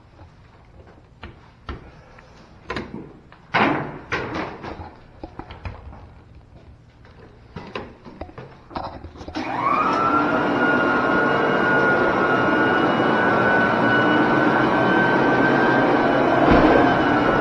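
Scattered knocks and clatter, then about nine seconds in an electric floor burnisher's motor starts, winding up quickly to a steady high whine over a broad hum as the pad spins on the vinyl tile floor.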